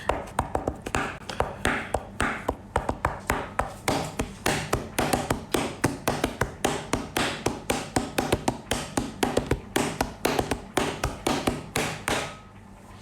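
Rapid run of sharp taps, about four or five a second, stopping abruptly about twelve seconds in.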